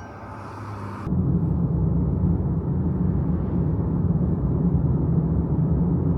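A car in motion: steady engine and road rumble that cuts in abruptly about a second in, after the fading ring of chimes.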